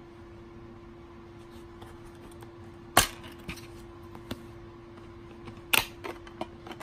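Plastic DVD case snapping open with a sharp click about three seconds in, then smaller plastic clicks. Near the end comes a louder double click and a few quick snaps as the disc is pressed off its centre hub. A faint steady hum runs underneath.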